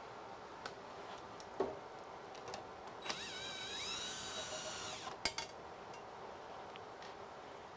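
Cordless drill/driver spinning up and running steadily for about two seconds, backing a screw out of a scroll saw's plastic arm cover, then stopping with a couple of sharp clicks. A single sharp knock comes about one and a half seconds in.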